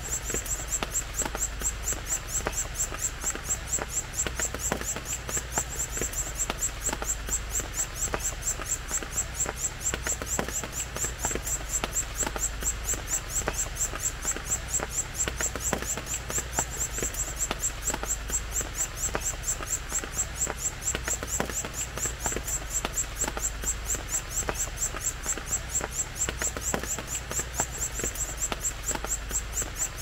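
Forest insects trilling: a fast, even, high-pitched pulsing that runs on unchanged, over a low steady hum.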